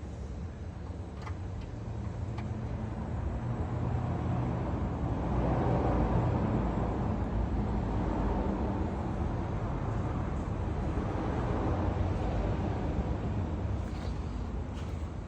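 Low, steady vehicle rumble that swells a few seconds in and eases toward the end, with a few faint clicks.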